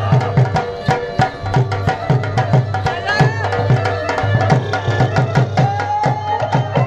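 Bhangra music: a dhol beaten in a fast, even rhythm under a melody line.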